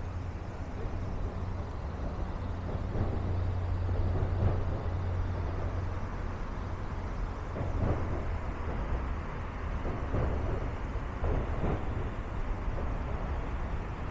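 Steady low rumble of road traffic with general street noise. The deep hum is strongest for the first half and eases off about halfway through.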